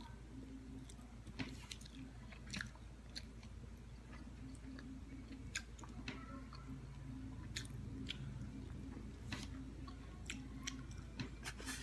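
A person chewing and biting buffalo wings, with scattered irregular mouth clicks and smacks over a faint steady hum.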